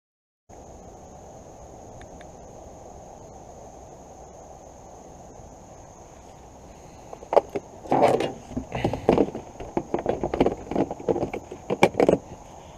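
Steady rush of fast creek water with a thin, steady high insect drone above it; from about seven seconds in, irregular sharp knocks and clattering handling noise break in, louder than the water.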